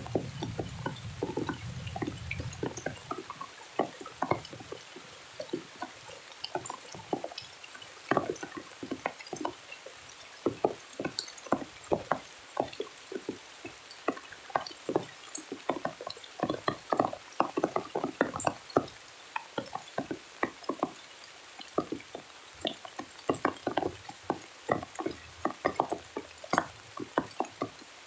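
Rain and dripping water falling onto a surface: a dense, irregular patter of separate drops over a light hiss of rainfall. A low rumble fades out over the first few seconds.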